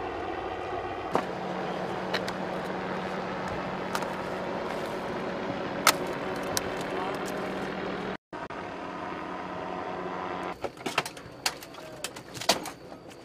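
An engine running steadily with a low, even hum, broken off for a moment just past eight seconds. About ten seconds in the hum drops away and a run of sharp knocks and clatters of debris follows.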